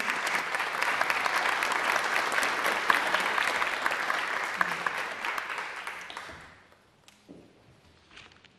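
Audience applauding, a dense patter of many hands clapping that dies away about six and a half seconds in.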